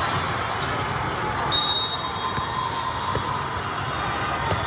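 Volleyball hall ambience: constant chatter of players and spectators, with the smack and bounce of volleyballs. A brief high-pitched squeal about a second and a half in is the loudest moment.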